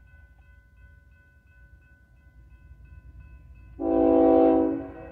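Horn of a BNSF GE ES44C4 locomotive leading a freight train sounds for a grade crossing: one loud blast starts about four seconds in and drops to a softer sound after about a second. Under it, a faint steady ringing of the crossing bell and a low rumble of the approaching train.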